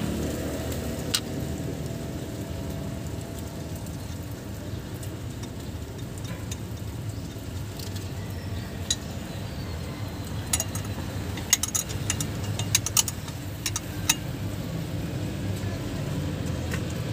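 Sharp metal clinks and ticks of a wrench and fan blade against the cooling-fan mounting nuts at the water pump pulley, one about a second in and a quick cluster in the last third, over a steady low rumble.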